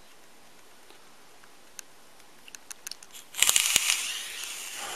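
Faint handling clicks, then about three and a half seconds in the atomizer coil on a two-battery Noisy Cricket mechanical mod fires: a sudden loud sizzle and crackle of e-liquid boiling on the coil, fading over about a second and a half. The coil build is too low for this mod.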